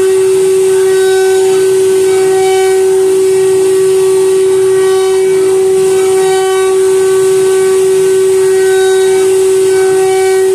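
CNC router spindle running at a steady high-pitched whine while its bit carves a wooden board, with fainter higher tones coming and going as the cut changes and a hiss over the top.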